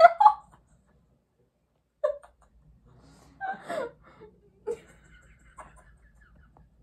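Two girls laughing under their breath: short bursts of giggling and breathy laughter with quiet gaps between them.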